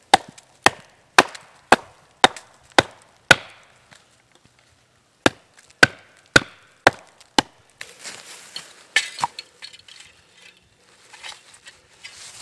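Wooden baton hammering the back of a hatchet that is set into a log, batoning it to split the wood. Sharp wooden knocks come about two a second, seven of them, then a pause and five more, followed by a few seconds of rustling.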